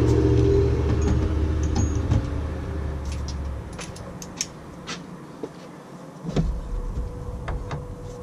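A steady low hum fades out about halfway through. It is followed by scattered light metallic clicks and taps of hand tools, a socket extension and ratchet, being handled in an engine bay.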